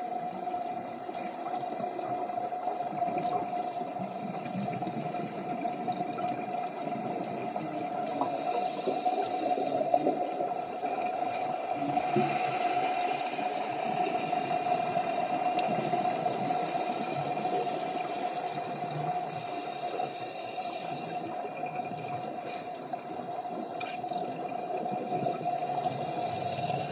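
Underwater sound picked up through a camera housing: scuba divers' regulator bubbles and rushing water noise, over a steady hum.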